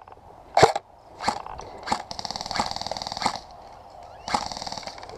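Airsoft gunfire: three single sharp shots about two-thirds of a second apart, then two rattling bursts of automatic fire, the first lasting about a second and the second near the end.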